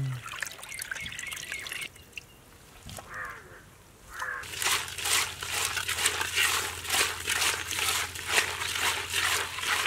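Small river fish being rinsed by hand in a pot of water: splashing and trickling, then after a quieter moment a run of quick, even rubbing strokes, about three a second, over a low steady hum.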